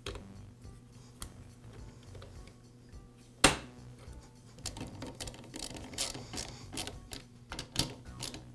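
Hard plastic and metal chainsaw parts clicking and knocking as the air filter base is fitted into the housing, with one loud sharp snap about three and a half seconds in. A quick run of small clicks and rattles follows as a nut driver tightens the base down.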